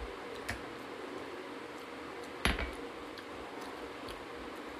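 Hand eating: fingers scooping curry and mixing rice on a metal plate, with one sharp clink of dishes about two and a half seconds in and a lighter click about half a second in, over a steady hiss.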